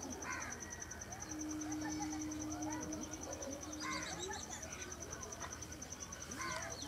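An insect chirping in a fast, even pulse throughout, under brief distant voice-like calls near the start, about four seconds in and near the end. A low steady tone sounds for about two seconds early on.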